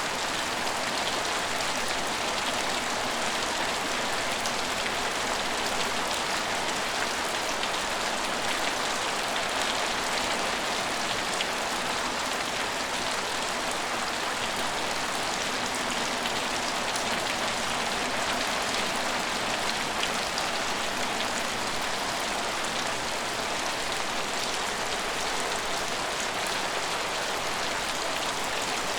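Steady rain falling: an even, unbroken hiss with many fine drop ticks patterned through it.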